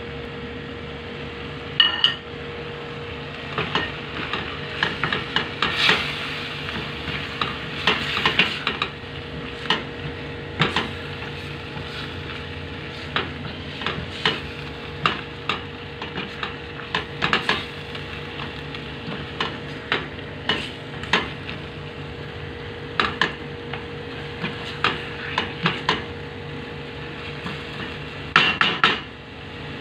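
Wooden spoon stirring seasoned chicken in a stainless steel pot, with frequent scrapes and knocks against the pot over a steady frying sizzle and a low steady hum.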